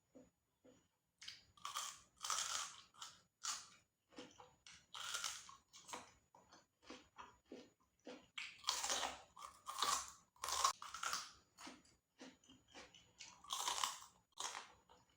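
Close-miked chewing of crunchy food: loud crisp crunches come in several clusters, with softer chewing between them.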